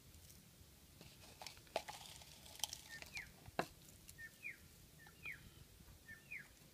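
Faint light ticks and clicks as short cut pieces of plastic tie-down strap are dropped into a silicone mould. A small bird calls four times in the background, each a short falling chirp, in the second half.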